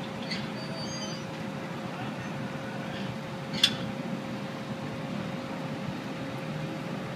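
Outdoor background of road traffic and distant voices over a constant steady hum, with a single sharp click about three and a half seconds in.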